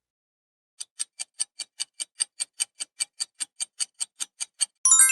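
Clock-like ticking sound effect of a quiz countdown timer, about five ticks a second, starting just under a second in, followed near the end by a bright chime of several ringing tones marking time up.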